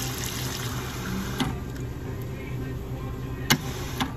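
Soda fountain dispenser pouring a steady stream of carbonated soda into a cup, a continuous splashing fill. A few sharp clicks come through it, one about a second and a half in and two near the end.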